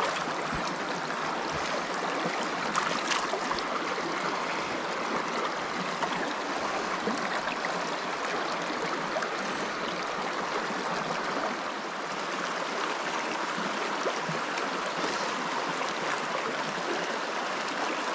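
Shallow, rocky river running over stones and riffles: a steady rush of water.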